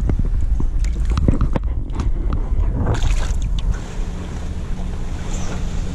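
Wind rumbling on the microphone in a small fishing boat, with a few light knocks and clicks of handling in the first half; the rumble eases a little after about four seconds.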